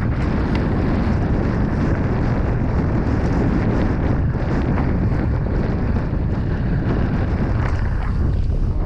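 Steady wind rushing over the microphone on an open boat at sea, a dense, low-heavy noise with no distinct events.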